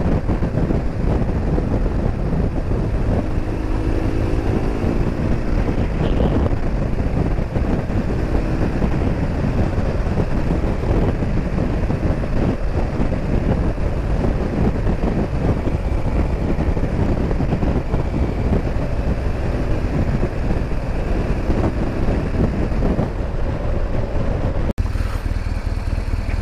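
Riding at speed on a BMW R1200GS: a steady rush of wind on the microphone over the boxer-twin engine, whose note climbs a few seconds in as the bike accelerates. About 25 seconds in the sound cuts abruptly to a steadier engine note.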